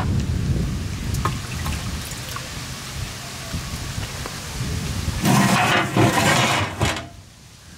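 Thick stingray curry gravy ladled and poured over rice on a banana leaf, with wet sloshing and a few light clicks. About five seconds in, a louder gushing pour runs for about two seconds and then cuts off suddenly.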